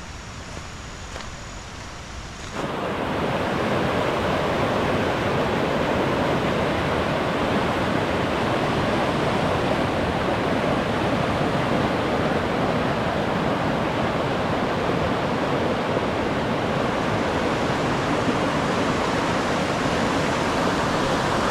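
Rapids on the Housatonic River, a loud, steady rush of water that starts abruptly about two and a half seconds in. Before that there is a quieter, even outdoor hiss.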